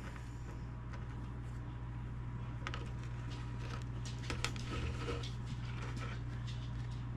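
Steady low electrical hum with a few faint clicks and rustles of hands handling wires and tape.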